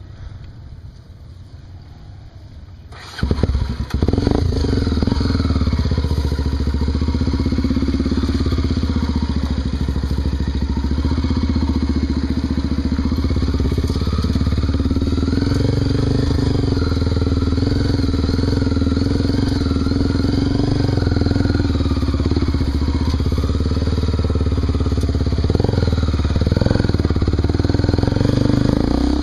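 Honda Tornado 250's single-cylinder four-stroke engine on a trail ride. A quieter low rumble lasts about three seconds, then the engine comes in loud and keeps running with its pitch wavering up and down as the throttle changes.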